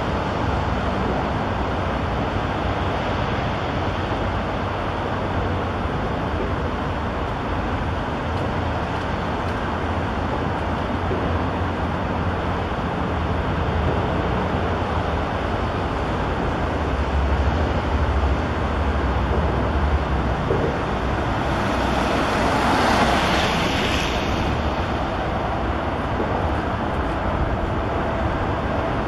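Steady highway traffic noise from the interchange, with a deeper rumble for a few seconds past the middle and a louder swell of passing traffic about three-quarters of the way through.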